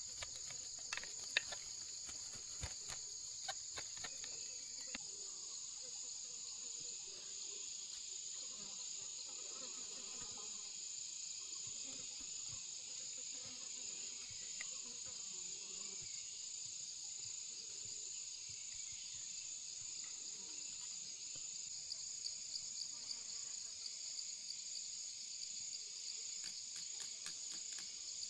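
Steady high-pitched chorus of insects such as crickets, with a few faint clicks in the first few seconds and again near the end.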